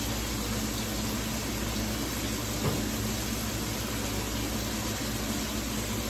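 Steady hiss of food cooking on a gas stove: a skillet of chopped vegetables frying and pots of chicken feet and water boiling, over a low steady hum. There is one small click about two and a half seconds in.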